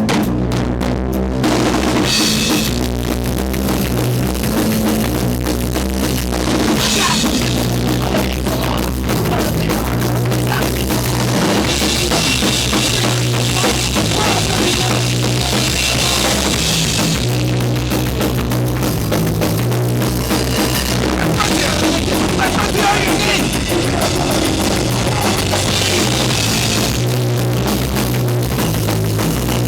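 Punk rock rhythm section, a bass guitar and a drum kit with cymbals, playing a song together. It is loud and a little fuzzy, distorted through the camera's microphone.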